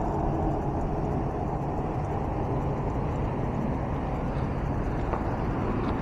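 Steady hum of road traffic.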